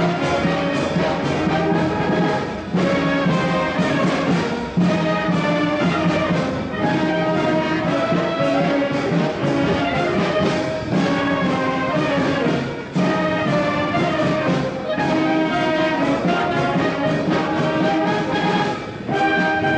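Brass band music: trumpets and trombones playing sustained melodic phrases, with short breaks between phrases every few seconds.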